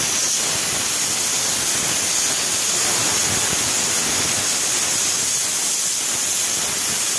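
Aluminium stovetop pressure cooker on a gas burner venting steam through its whistle weight: a loud, steady hiss. This shows that pressure has built up inside the cooker.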